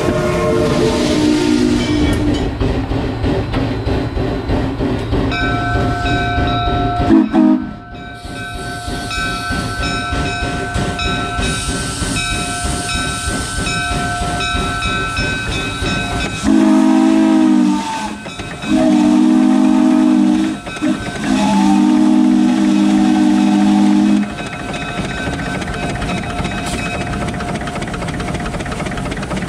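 Shay geared steam locomotive's steam whistle blown in three long blasts, the last the longest, over the steady hiss and running of the engine. The first seven seconds hold a separate stretch of stepping pitched tones that cuts off abruptly.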